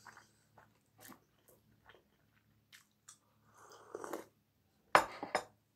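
Close-up eating sounds: a person chewing a mouthful of pancake, with small wet mouth clicks and smacks. A soft sip from a cup comes about four seconds in, followed just before the end by a sudden sharp clack, the loudest sound.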